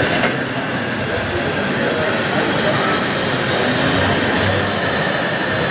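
Steady din of a busy exhibition hall: many voices blended into a constant background wash.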